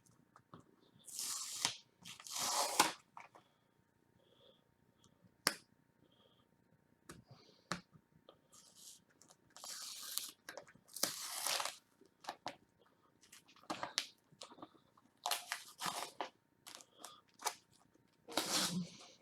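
Packaging being torn and crinkled open by hand, in irregular crackly bursts with small clicks between.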